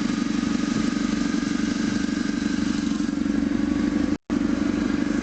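ZMZ-409 four-cylinder petrol engine idling steadily, with no timing-chain knock after its lower and upper timing chains were replaced. The sound cuts out for a moment about four seconds in.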